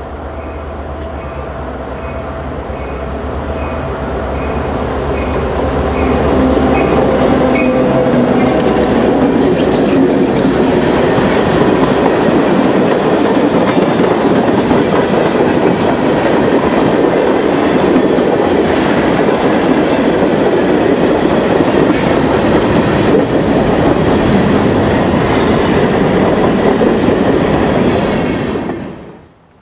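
Freight train with diesel locomotives approaching with engines running, then a line of tank cars rolling past with loud wheel noise and clickety-clack over the rail joints. In the first seconds a high ding repeats about twice a second. The sound cuts off suddenly near the end.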